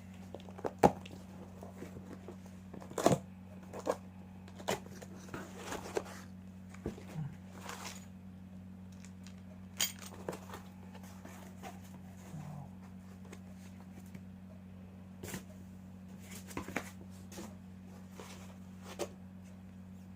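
Packaging being handled and opened by hand: scattered clicks, knocks and rustles of cardboard and plastic wrap, the sharpest knocks about a second in and about three seconds in. A steady low electrical hum runs underneath.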